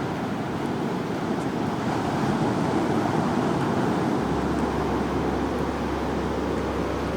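Surf washing onto a sandy beach: a steady rush of breaking waves that swells and eases, with a low hum joining about four seconds in.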